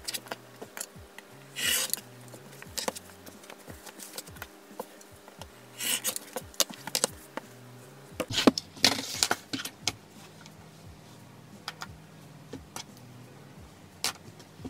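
Fabric pieces and a plastic quilting ruler handled on a cutting mat: scattered small clicks and taps and three brief swishes of cloth, the loudest about nine seconds in, over quiet background music.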